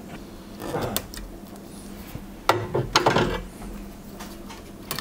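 Small hand tools and a graphics-card board being handled on a workbench mat: a few separate clicks and knocks, the two loudest about half a second apart near the middle.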